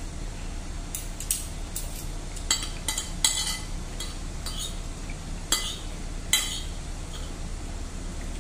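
Metal spoon and fork clinking and scraping against a ceramic plate while eating: about nine sharp clinks spread over several seconds, over a steady low hum.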